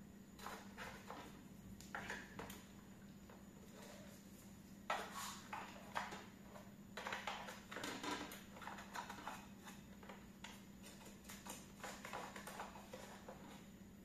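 Robot vacuum cleaner being cleaned by hand: a small plastic cleaning tool scraping and clicking against its brush and housing in short intermittent bursts, over a steady low hum.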